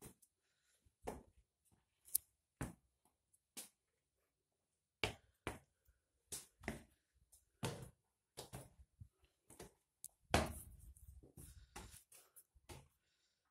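Footsteps climbing stone stairs in a narrow stone stairwell: irregular scuffs and knocks, some with a dull thud, at an uneven pace.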